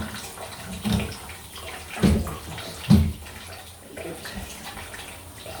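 Mains water running steadily out of a disconnected supply pipe because the stop cock will not fully shut off. Three dull knocks about a second apart come over it, the last the loudest.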